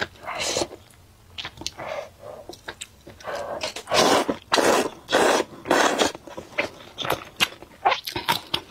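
Thick wheat noodles slurped up from broth, about four long loud slurps in quick succession midway, then wet chewing with small mouth clicks near the end.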